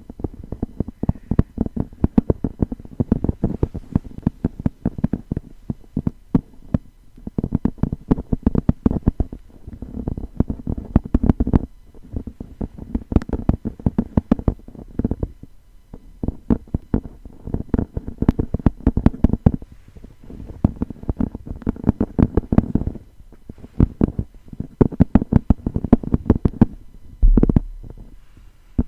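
Fast, dull tapping on a grimoire-style book, in quick runs of many taps broken by brief pauses, with a low thump near the end.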